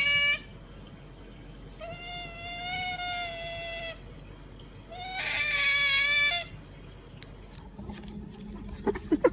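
An animal's long, steady, high-pitched calls: one cuts off just after the start, then two more, each about one and a half to two seconds long, the last the loudest. Near the end a rapid string of short pulsed sounds begins.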